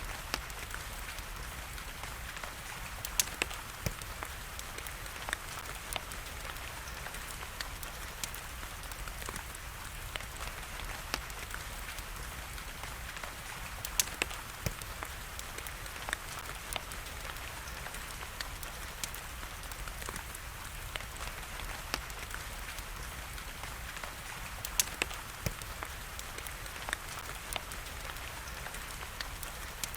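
Wood fire crackling in a fireplace, with scattered sharp pops, over a steady hiss of rain.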